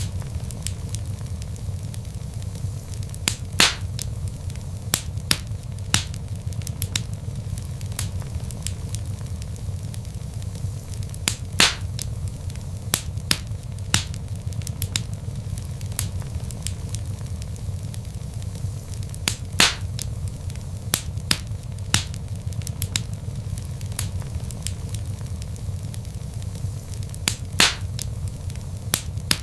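Log fire burning, with a steady low rumble of flames and frequent small crackles. Louder pops come four times, about every eight seconds.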